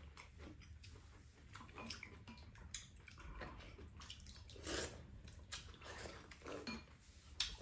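Close-up eating sounds of bibimbap: wet chewing and mouth noises, with scattered light clicks of spoons against the bowls.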